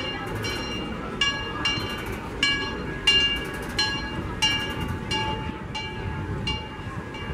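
A steam locomotive's bell rung steadily, about one and a half strokes a second, each stroke a clear ringing tone that dies away quickly, over the low rumble of the train rolling by.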